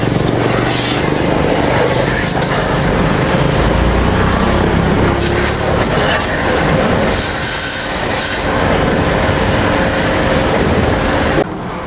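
Portable electric high-pressure car washer running and spraying: a steady motor hum under the hiss of the water jet, cutting off sharply near the end.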